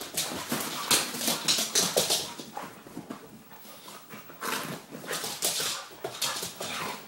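Two dogs play-wrestling, with a quick run of short, noisy huffing breaths and scuffles.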